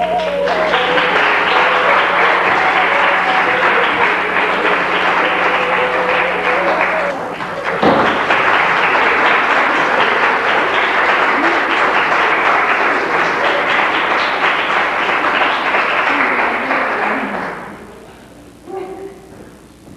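Audience applauding, loud and sustained, with recorded music still playing faintly under it for the first several seconds; the applause dies away near the end.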